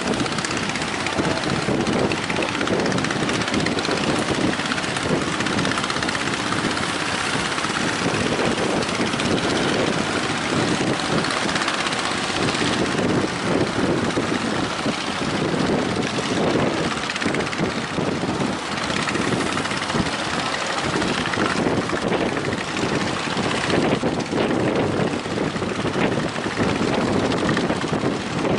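Boat engines running amid strong wind, heard as a continuous rushing din without clear breaks.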